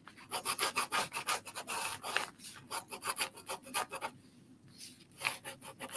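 Ballpoint pen scribbling on paper in quick short strokes, pausing about four seconds in and starting again near the end.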